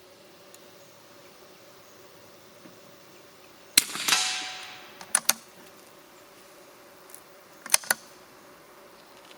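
A single shot from an Anschutz 1913 .22 LR target rifle, a sharp crack with a short echoing tail, followed by two pairs of sharp clicks about a second and three and a half seconds later.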